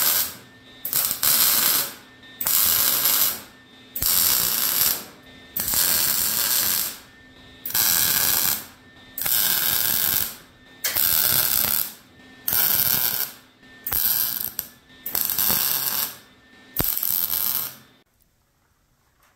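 Lincoln 110-volt MIG welder on shielding gas stitch-welding a steel diamond-plate patch into sheet metal: about fifteen short bursts of sizzling arc crackle with brief pauses between them. The welds are kept short, about an inch each, so the heat does not warp the thin metal.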